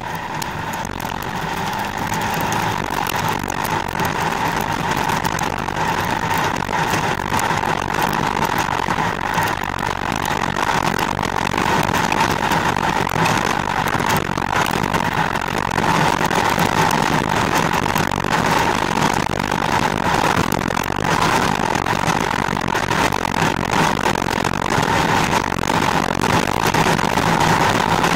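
Skoda Octavia TDI driving at speed on asphalt, heard from beside the front wheel: a steady rush of tyre and road noise with a low rumble under it, growing slightly louder over the stretch.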